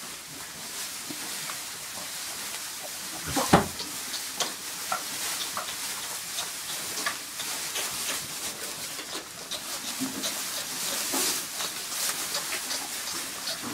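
Tamworth pigs rooting and shuffling in straw and hay, a steady crackling rustle with many small clicks, and one loud sudden thump about three and a half seconds in.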